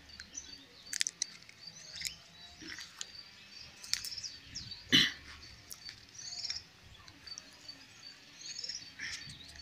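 Small birds chirping now and then, with scattered light clicks and one short, louder knock about five seconds in.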